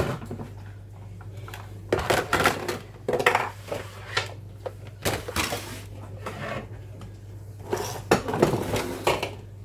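Dishes and bowls clinking and clattering as they are taken out of a kitchen cupboard and set down, in three separate bursts of handling.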